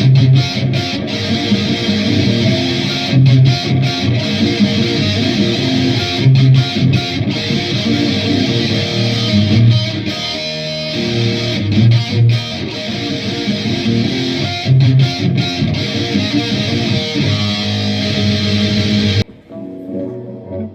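Dean Cadillac electric guitar played through a Boss Metal Zone MT-2 distortion pedal into an Orange Super Crush 100 amp: heavily distorted riffing with accented low chord hits every few seconds. About a second and a half before the end the playing stops, leaving only a quiet fading ring.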